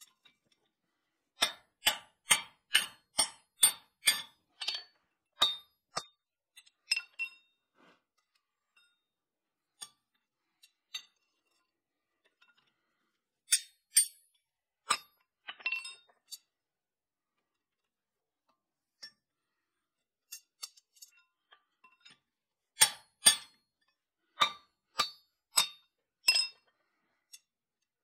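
Hand hammer blows on a steel drift set in the punched eye of a red-hot forged hammer head, opening out the eye. The blows are sharp and ringing, about two a second, in three bouts: a long run of about a dozen early on, a few in the middle, and another half-dozen near the end.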